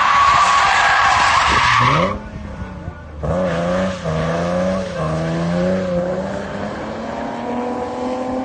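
Nissan 370Z's 3.7-litre V6 drifting: loud tyre squeal for about the first two seconds, then the engine revs up in pitch and holds high, wavering revs as the car keeps sliding.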